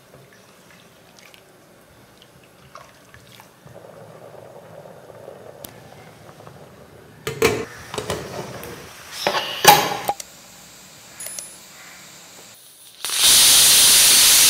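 Faint stirring of millet flour and water in a stainless steel pressure cooker, then metal clinks and knocks about halfway through as the lid is fitted and locked on. In the last second or so, a loud steady hiss starts: steam bursting out under the pressure cooker's weight, the cooker whistling.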